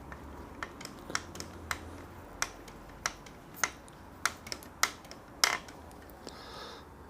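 Irregular sharp clicks and taps of small tools and hard plastic parts handled at a workbench during RC kit assembly, about fifteen of them scattered unevenly.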